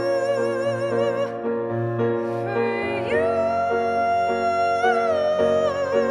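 A woman singing long held notes with vibrato over piano accompaniment. A new note rises about halfway through and is held for a couple of seconds.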